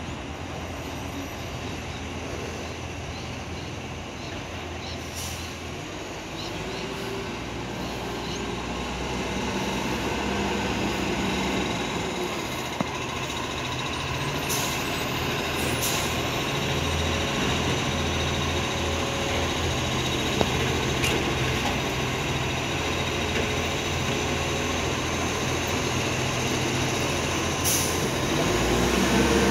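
Diesel engine of an Iveco ACCO side-loader garbage truck running as the truck approaches, growing steadily louder, with a few brief sharp sounds on top.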